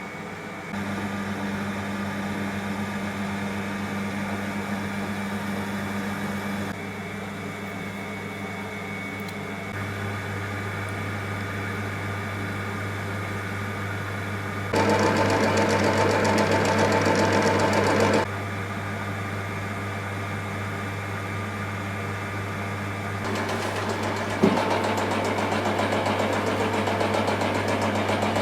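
Myford ML7-R metalworking lathe running on its electric motor with a steady hum, the sound changing in steps several times. About halfway through it runs much louder and rattlier for a few seconds, and a sharp click about three-quarters of the way through is followed by a louder running note.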